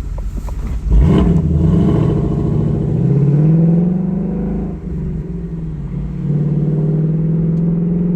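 Ford Mustang GT's 5.0 V8 through its active exhaust in sport mode with a Steeda H-pipe in place of the resonators, opening up hard. About a second in the exhaust note jumps up loud and climbs in pitch, dips briefly near the middle, then comes back strong.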